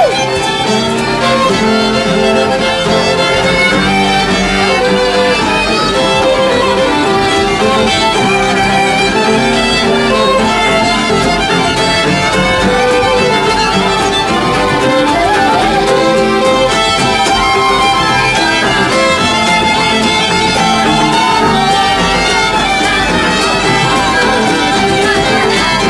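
Several fiddles playing a tune together in a jam, bowed steadily with no break.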